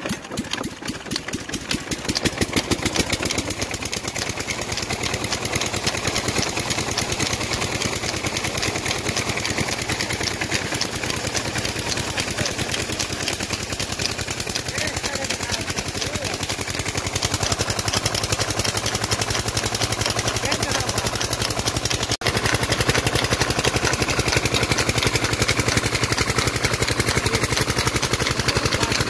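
Stationary diesel engine of a tubewell pump set, belted to the water pump, picking up speed in the first couple of seconds and then running steadily with a rapid, even chugging.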